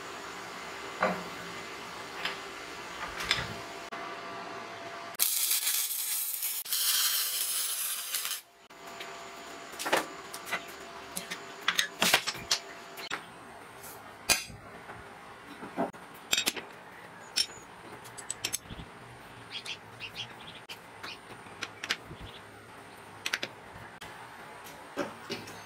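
Steel parts and hand tools being handled on a workbench: scattered clinks, taps and clatters of metal on metal. About five seconds in comes a loud hiss that lasts about three seconds, then stops abruptly.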